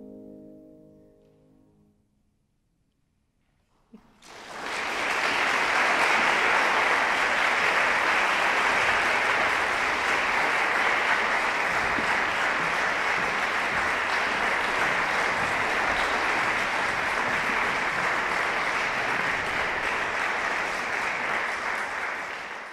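The piano's last chord rings away into a moment of silence. Then an audience breaks into steady applause about four seconds in, which fades out at the very end.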